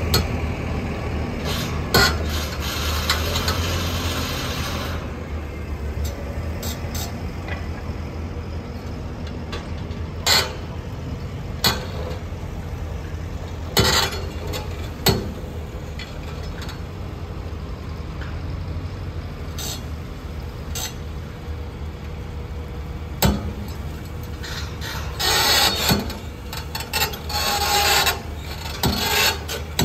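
Develon crawler excavator's diesel engine running with a steady low hum, heavier for the first few seconds, with sharp knocks every few seconds and bursts of bucket steel scraping through gravel near the end.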